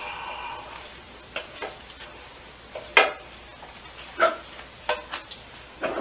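Irregular metal clunks and clicks from a torque converter being turned and worked by hand onto its splines inside a TorqueFlite 727 transmission's bellhousing, with a brief ringing at the start and the loudest knock about three seconds in.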